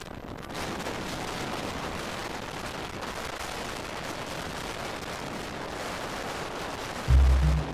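Steady rushing wind noise on a microphone moving along with the cyclists. About seven seconds in, music with a heavy bass beat cuts in abruptly and becomes the loudest sound.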